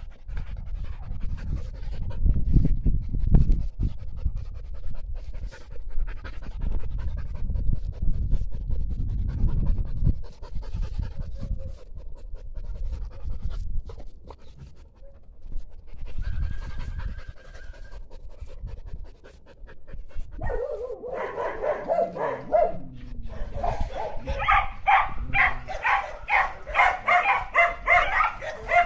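Large black dog panting hard near the end, fast and rhythmic at about three breaths a second with a whining voice in each breath, after a drawn-out falling whine. A low rumble fills the first third.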